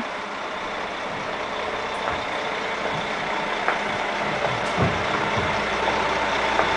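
Steady machine noise with a faint hum, slowly growing louder, with a few light knocks.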